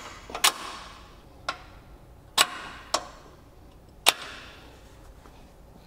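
Sharp metal-on-metal clinks, about six at uneven intervals, each with a brief ring, as a bolt is fed through the radius rod end and the trailing arm of a Can-Am Maverick X3's rear suspension.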